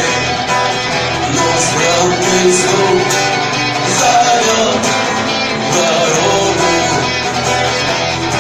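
Live rock music, guitar to the fore, playing steadily throughout.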